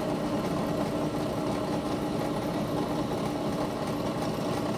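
Benchtop drill press motor running with a steady hum while a small drill bit is fed slowly down through a block of wood.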